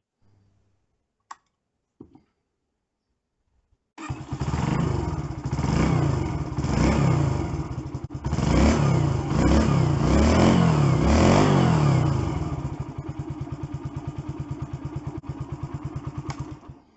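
Yamaha YB125SP's single-cylinder four-stroke engine comes in about four seconds in and is revved several times, rising and falling in pitch. It then settles to a steady, evenly pulsing idle and stops just before the end. Two faint clicks come before it.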